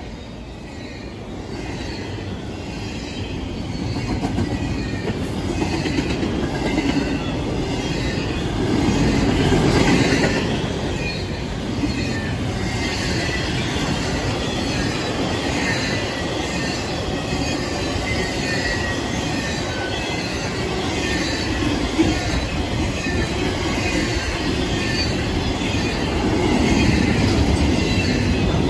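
A long double-stack intermodal freight train passing at speed: a continuous rumble and rattle of wheels and container cars, swelling a little about ten seconds in and again near the end.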